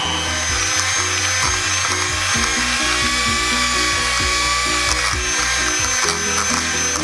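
Electric hand mixer running steadily with a motor whine, its beaters creaming butter and sugar in a glass bowl, over background music with a regular beat.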